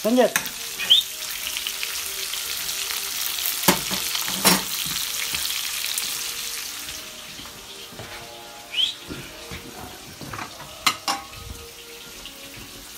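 Sausages sizzling in a frying pan on a stove, the sizzle loudest in the first half and fading after about seven seconds, with a few sharp knocks in between.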